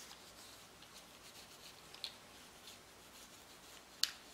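Faint rubbing of a cloth patch wiping Ballistol oil along the rails of a Sig Sauer Mosquito pistol slide, handled in gloved hands. There is a small tick about halfway and a sharp light click near the end.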